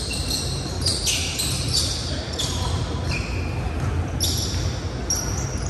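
Basketball game across a large gym: sneakers squeak in short, sharp bursts again and again on the hardwood court, over a steady low hum of the hall.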